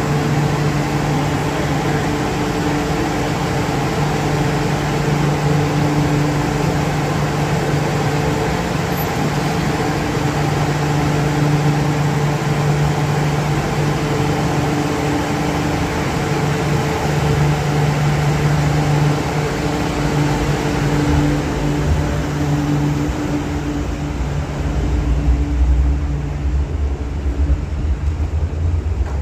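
MTR Q-train electric train standing at the platform with a steady humming drone, then its doors close and it pulls away. The hum fades about two-thirds of the way through, and a low rumble follows near the end as the train leaves.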